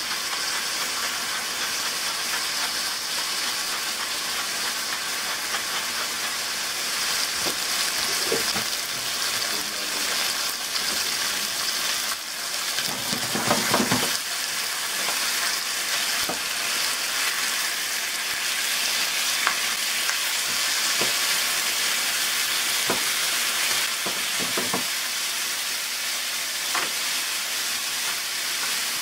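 Pork chops and garlic sizzling steadily in hot olive oil in a frying pan. A few light knocks, with a brief louder clatter about halfway through.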